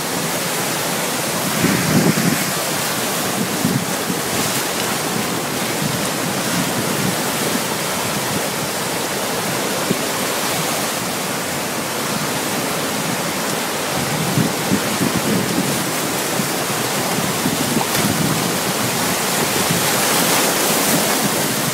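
Steady rush of water with wind noise on the microphone, swelling briefly and low about two seconds in and again near fifteen and eighteen seconds.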